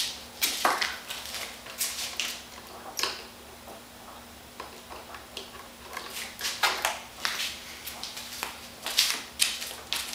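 Irregular clicks, taps and rustles of hands handling a model airplane and its wiring, with a faint steady hum underneath.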